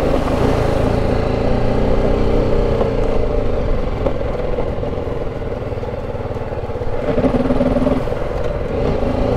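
BMW G310 GS single-cylinder engine running as the motorcycle rides over gravel and through shallow water in a riverbed. The engine note grows louder for about a second around seven seconds in.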